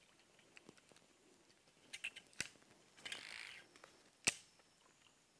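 Frog lure worked across still water: faint ticks and small surface plops, a short splashy rush about three seconds in, and a sharp knock a little after four seconds, likely against the boat.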